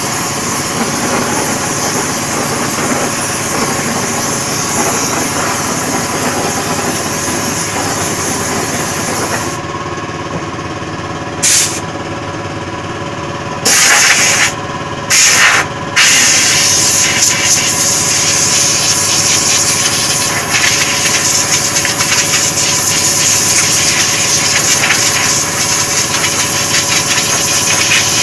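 Air compressor running steadily under the hiss of a spray gun spraying chrome onto a steel wheel. The hiss stops about a third of the way in, comes back in three short bursts, then runs steadily again.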